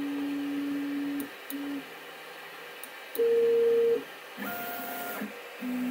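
Stepper motors of a CoreXY 3D printer whining through its homing moves, with sensorless homing on X and Y. A low steady tone stops about a second in. Then come several short tones at different, higher pitches, each under a second long, with short pauses between them.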